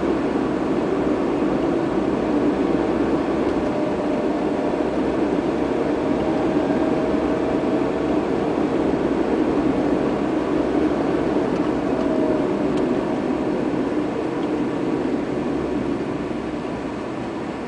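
Steady road and engine noise heard from inside a moving car's cabin, a low even rumble of tyres and engine, easing down over the last couple of seconds.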